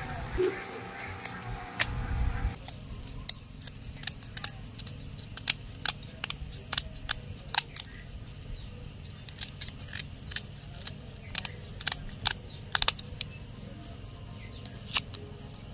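Kitchen scissors snipping at a pearl spot fish while it is cleaned, giving sharp irregular clicks about one or two a second. A bird's short falling call repeats in the background.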